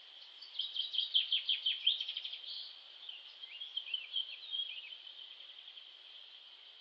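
A songbird singing: a fast run of quick descending notes lasting about two seconds, then a softer, more scattered phrase, over a steady high-pitched hiss.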